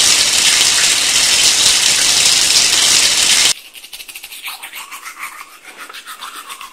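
Shower water spraying for about three and a half seconds, then cutting off; after that, a toothbrush scrubbing teeth in fast back-and-forth strokes.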